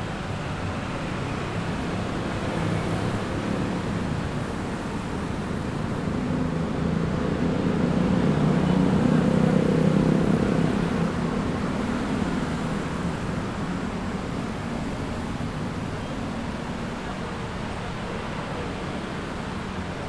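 Busy city street traffic at night, a steady wash of engines and tyres. Near the middle one vehicle's engine passes close, swelling louder for a few seconds and then fading back into the traffic.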